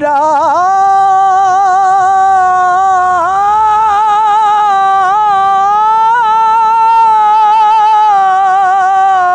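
A man's voice singing a naat unaccompanied, holding one long, high note that wavers slightly in pitch.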